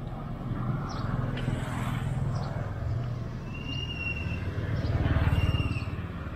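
A motor vehicle's engine running with a low rumble that grows to its loudest about five seconds in and then eases off. A few short bird chirps sound over it.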